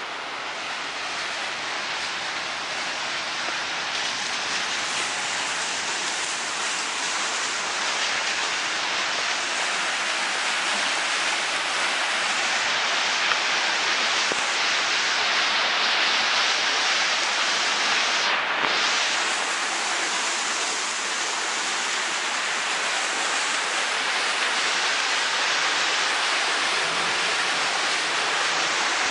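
Steady rush of running water, an even hiss-like roar with a brief dip about two-thirds of the way through.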